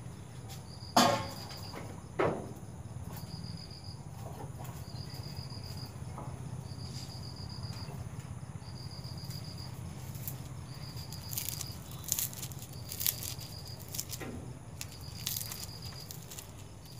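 Crickets chirping steadily, about one short high chirp a second, over a low steady hum. Two sharp knocks come about one and two seconds in, the louder one first, and crisp crackling rustles of puffed rice being pressed between the hands come near the end.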